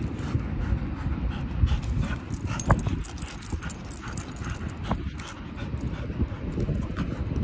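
A dog panting, over wind rumbling on the microphone.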